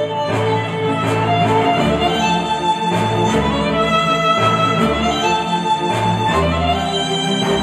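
Instrumental music with a violin and string melody over a steady beat, played back through Dayton Audio B652 Air bookshelf speakers driven by a Yamaha A-S301 integrated amplifier.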